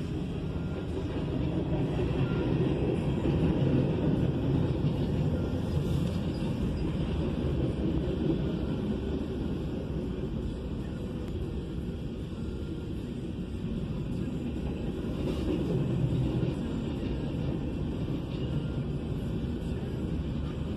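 Freight train cars rolling past a grade crossing: a steady low rumble of wheels on rail heard from inside a stopped car, swelling louder a few seconds in and again late on, with a few faint clicks.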